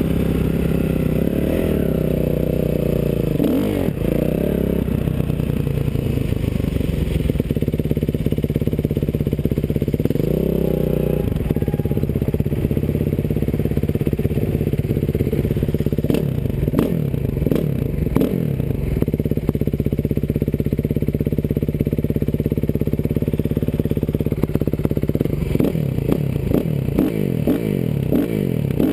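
Dirt bike engines running at low speed, with several quick throttle blips about halfway through and a run of revs rising and falling near the end.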